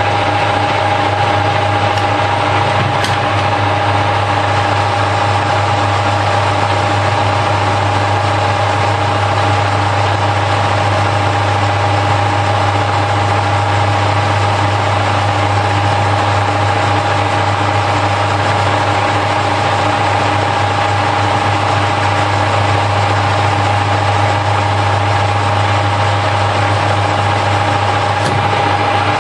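Harrison L5 metal lathe running at a steady spindle speed during a turning pass on bar stock, with a steady whine from its drive.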